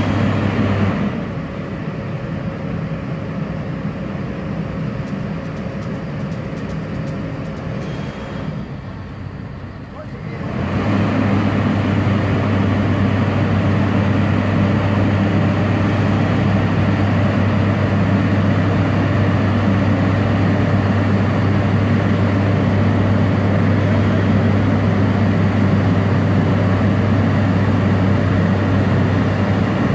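Asphalt paver's diesel engine running with a steady low hum; it eases to a quieter run about a second in, then picks up again to a louder steady run about ten seconds in.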